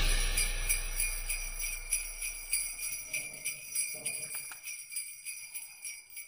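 Background music tail of jingle bells shaken in a steady rhythm, fading out.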